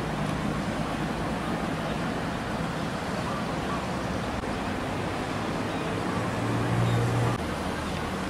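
Steady outdoor background noise with a low hum, which swells briefly about six and a half seconds in.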